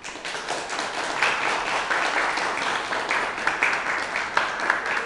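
Audience applauding: many hands clapping, building within the first second and then keeping up steadily.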